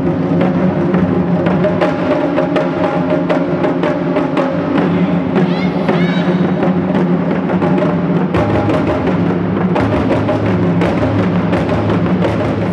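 Japanese taiko drum ensemble playing, several drummers striking large drums with wooden sticks in a fast, driving rhythm.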